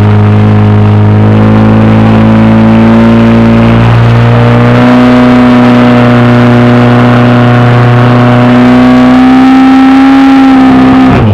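Portable fire pump engine running flat out under load, pumping water to the hose lines. A loud, steady engine tone that steps up slightly in pitch about five seconds in and climbs a little more near the end.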